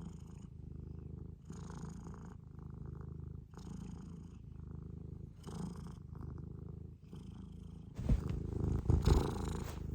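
Scottish Fold cat purring steadily, the rumble pausing briefly every couple of seconds with each breath. Near the end a few louder low thumps sound over the purr.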